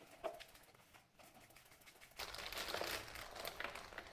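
A light click near the start, then plastic food packaging crinkling and rustling from about two seconds in.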